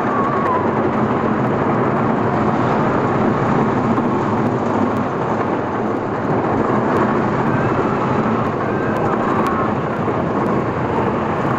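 Lightning Racer wooden roller coaster train running along the track, heard from on board: a steady, loud, dense rumble and rush of wheels on the wooden track.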